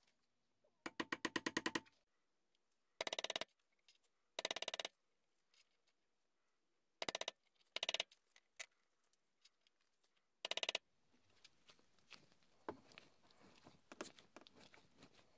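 Metal file scraping across a copper ferrule held in a vise: six short runs of rapid, rasping strokes with pauses between them. Lighter clicks and rustles of tools being handled follow near the end.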